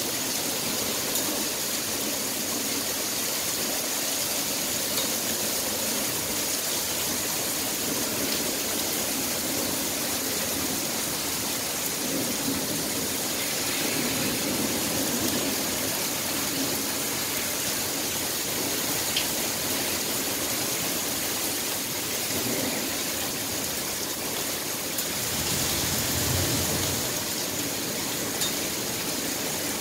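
Heavy rain pouring down in a steady downpour during a thunderstorm, with a brief low rumble of thunder near the end.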